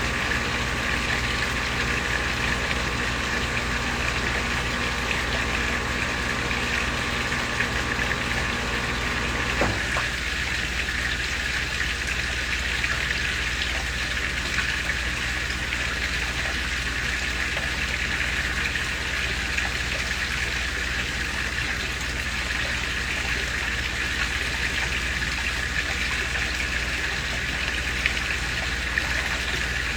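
Water from a koi pond waterfall splashing steadily into the pond. Under it runs a low mechanical hum that cuts off suddenly about ten seconds in.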